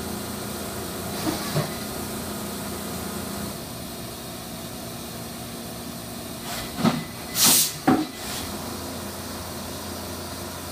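Brother five-axis CNC machining centre running, with coolant spraying in a steady hiss over a machine hum. Two faint knocks about a second in. About seven seconds in, a knock, a short loud hiss and another knock.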